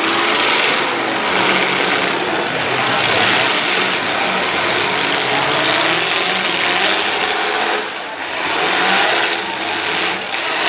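Several demolition derby cars' engines running and revving hard together, a loud continuous din that dips briefly about eight seconds in.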